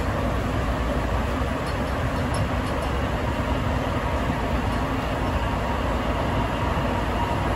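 Sapporo subway train running between stations, heard inside the car: the steady rumble and hiss of the rubber-tyred train under way. A faint steady whine comes in near the end.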